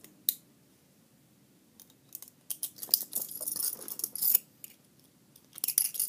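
Chain-link metal handcuffs being picked: small metallic clicks and scraping of a pick in the cuff's lock, in short spells with pauses between. Near the end the cuffs and chain rattle more busily.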